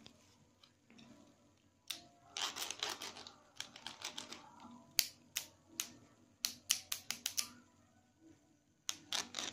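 A plastic lighter clicking and scraping against a stiff braided raffia cord and the tabletop: a short rubbing stretch, then a run of sharp, uneven clicks, with a few more near the end.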